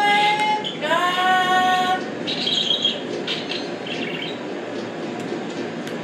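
Yellow-naped Amazon parrot singing: two long held notes, the second sliding up at its start, followed by a brief high note and quieter fragments.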